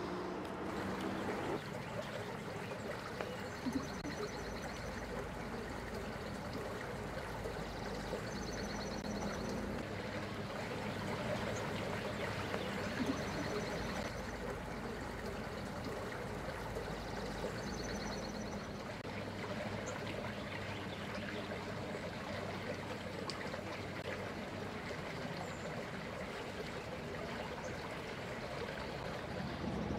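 Small forest creek trickling steadily, with a few brief high chirps now and then.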